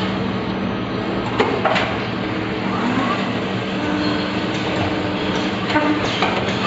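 CNC machine for making tool bits running: a steady mechanical hum under dense clattering noise, with a few sharp clicks and a short whine about four seconds in.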